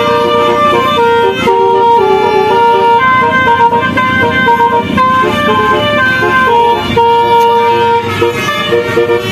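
Basuri telolet horn, a multi-tone musical vehicle horn, playing a melody in held notes that step up and down in pitch.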